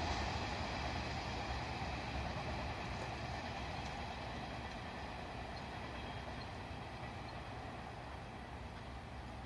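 Freight train hauled by an EF210 electric locomotive running away on the rails, its noise fading steadily as it recedes.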